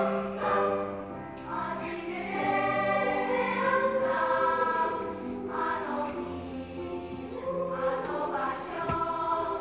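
Children's choir singing, with long held notes.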